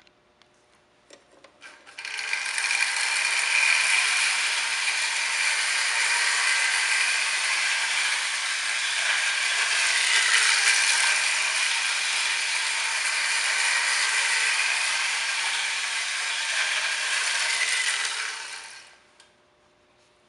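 Late-1920s Lionel Standard Gauge #380 electric toy locomotive running around a loop of track: the steady running noise of its electric motor, gears and wheels on the rails. It starts about two seconds in and winds down to a stop near the end.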